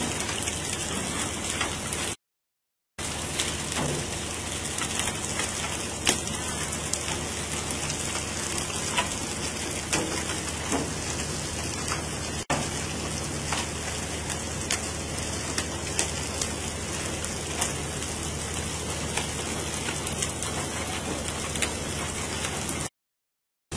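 Steady watery hiss on the open deck of a pole-and-line tuna boat, with scattered sharp knocks. The sound drops out completely twice for under a second, once near the start and once near the end.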